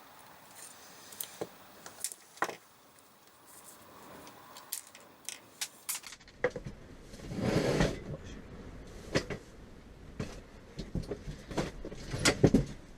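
Hands handling small parts and tools at a workbench: scattered sharp clicks and knocks, with a brief rustling noise just past halfway.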